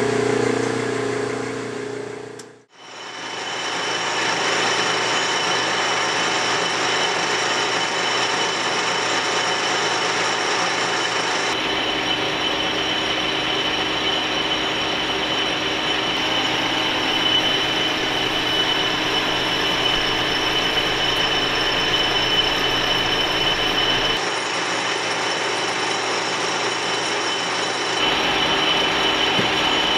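Large engine lathe running under power while turning down an aluminium bar, a steady mechanical whir with a thin high whine over it. The sound drops out briefly about two seconds in, then runs on steadily.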